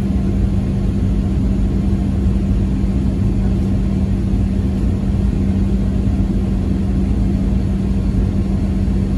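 Steady road noise inside a moving vehicle: engine and tyres drone with a constant low hum.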